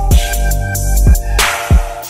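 Background music: an electronic hip-hop beat with deep kick-drum hits that drop in pitch, held bass notes and crisp hi-hats.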